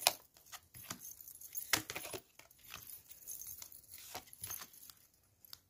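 Tarot cards being handled and laid down on a cloth-covered table: an irregular run of light taps, flicks and slides, the sharpest about two seconds in.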